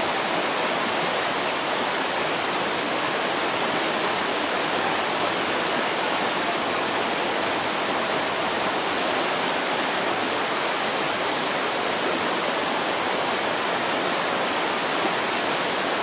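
A waterfall and the churning white water below it, rushing steadily as a dense, even hiss of water that does not change.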